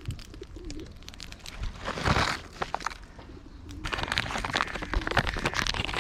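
Pigeons cooing: a low wavering call about half a second in and again near the end, with bursts of rustling noise around two seconds and from four seconds on.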